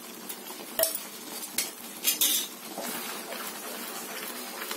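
Wooden spatula stirring thick okra gravy in a non-stick frying pan, with a few sharp knocks of the spatula against the pan between about one and two seconds in. Under it runs the faint steady sizzle of the simmering gravy.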